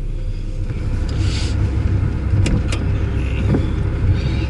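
Car driving, heard from inside the cabin: a steady low road rumble, with a brief hiss about a second in and two sharp clicks a little past halfway.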